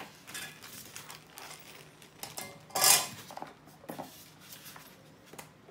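Small parts and accessories being gathered up and moved off a tabletop: rustling and light clattering of hard items, with one louder clatter about three seconds in.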